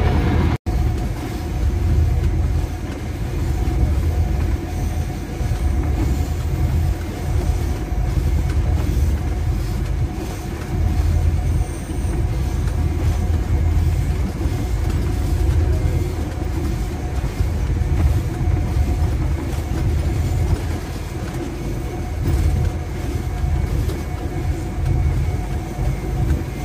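GEU-20 (GE U20C) diesel-electric locomotive running at speed, heard from the cab: a steady low diesel rumble mixed with wheel and rail noise. The sound cuts out for an instant about half a second in.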